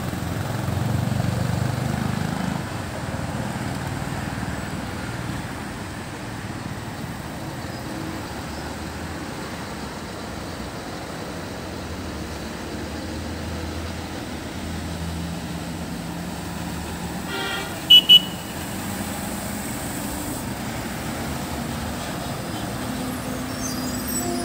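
Heavy lorry's diesel engine running at low revs as it crawls round a tight hairpin, mixed with passing traffic, its note climbing near the end as it pulls away. A short, sharp double horn toot sounds about two thirds of the way through.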